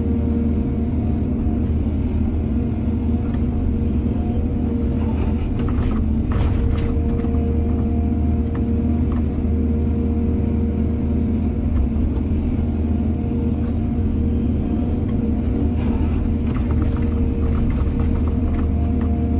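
Excavator's diesel engine running steadily under load, with brief metallic clatters from the working machine about six seconds in and again near the end.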